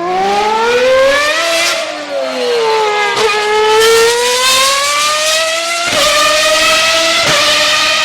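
Formula 1 car engine at high revs: the pitch climbs, falls back, then climbs again, with sudden drops in pitch about six and seven seconds in as it shifts up through the gears.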